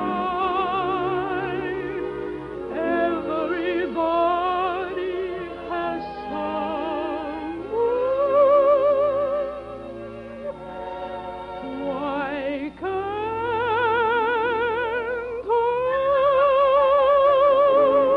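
Operatic-style singing with a wide vibrato over orchestral accompaniment, the voice sliding up into long held notes several times.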